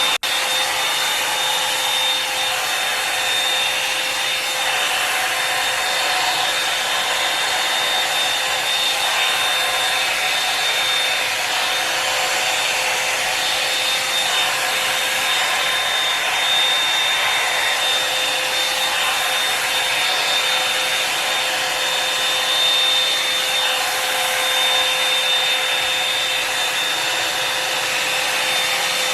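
Revlon One-Step Hair Dryer and Volumizer hot air brush running on its high setting: a steady rush of blowing air with a steady high whine from its fan motor.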